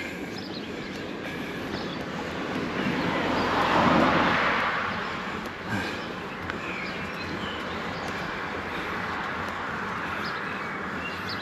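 Steady rolling and wind noise from riding a loaded touring bicycle, swelling to a louder rush about four seconds in that then fades back to the steady level.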